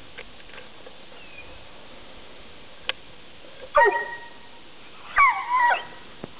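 A dog barking twice: two short, high-pitched barks about a second and a half apart, the second a little longer and wavering in pitch.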